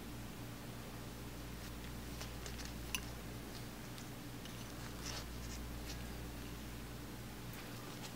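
Steady low electrical hum with a few faint clicks and light taps, the clearest a little under three seconds in and another about five seconds in, from steel-backed engine main bearing shells being handled in gloved fingers.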